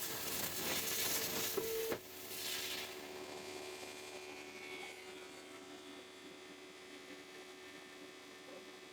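CNC plasma cutter: a loud hiss that cuts off sharply about two seconds in, a brief rush of air, then a steady electrical hum.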